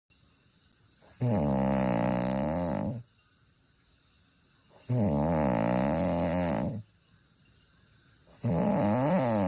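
Snoring: three long, regular snores, each about two seconds, with a pitch that wavers up and down. The third is still going at the end.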